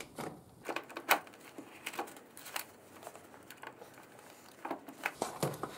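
Irregular light clicks and knocks of metal parts being handled as the throttle cable is worked free of the motorcycle's carburetor bank, the sharpest knock about a second in.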